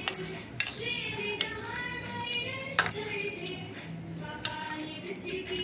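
Quiet background music, with bangles clinking on the wrist several times as a hand mashes boiled potato into soaked sago pearls.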